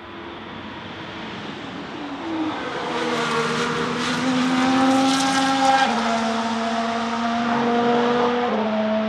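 Ferrari F1-75 Formula 1 car with a 1.6-litre turbocharged V6 hybrid engine, approaching and passing at full throttle. It is loudest about five seconds in, then pulls away with two sharp upshifts a couple of seconds apart.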